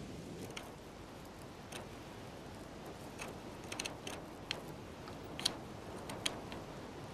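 Irregular sharp clicks and snaps of dry sticks being handled by a pair of black eagles building their nest, with two louder snaps in the second half.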